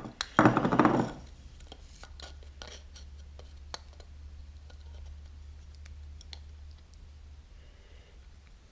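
Handling noise: a loud scrape and rustle for about the first second, then scattered light clicks and scratches as the plastic part and a measuring tool are handled, over a low steady hum.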